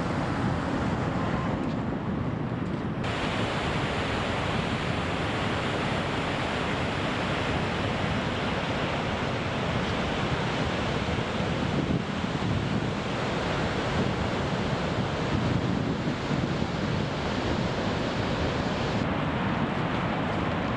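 Steady rushing of Niagara Falls' water pouring over the partly frozen falls, heavy in the low end; the sound turns brighter suddenly about three seconds in.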